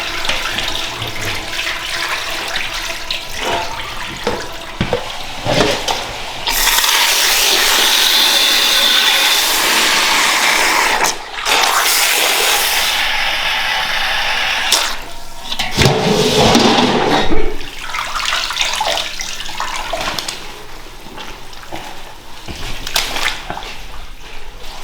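Water running and splashing, heaviest in two long stretches through the middle, with a few sharp knocks a little after the middle.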